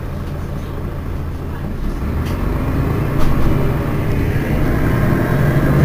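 Mercedes-Benz Citaro city bus engine running at a steady low idle, then pulling harder and growing louder from about two seconds in as the bus moves off, with a couple of faint clicks.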